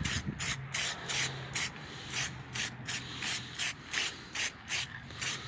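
Plasti Dip aerosol can at work on a car door handle: a rhythmic run of short hissing strokes, about three a second.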